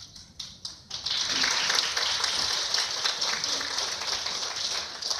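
Audience applauding: a few scattered claps build within about a second into steady applause, which thins out near the end.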